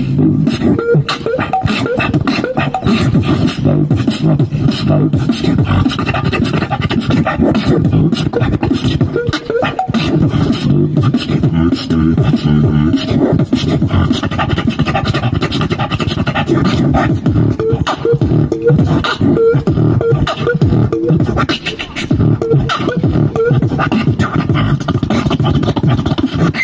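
Fast freestyle beatboxing into a corded handheld microphone, amplified: an unbroken stream of rapid drum-like clicks and hits over deep bass tones that step in pitch.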